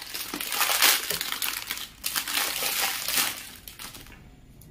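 Plastic packaging crinkling and rustling in the hands as bangles are unwrapped and handled, dying away about four seconds in.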